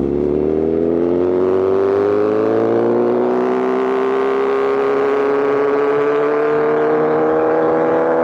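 Inline-four superbike engine accelerating in one long pull under load, its note rising slowly and steadily.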